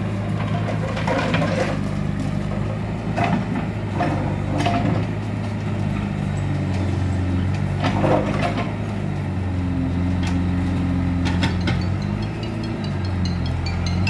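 Backhoe loader's diesel engine running steadily under load while it knocks down a brick house, with several crashes of falling masonry and rubble.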